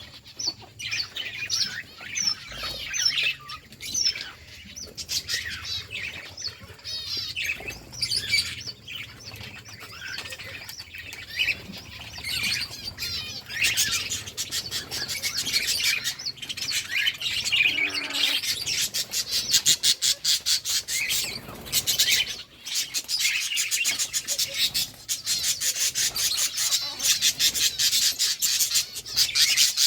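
Several budgerigars chirping and chattering, the twittering growing denser and louder about halfway through.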